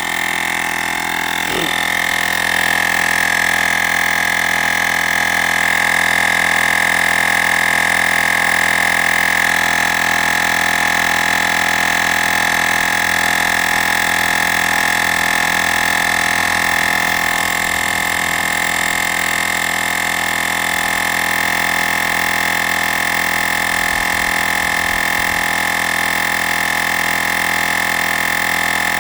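Olgeo M7 battery-powered portable air compressor running steadily with a high-pitched whine, pumping up a tire at about 28 psi toward 40 psi.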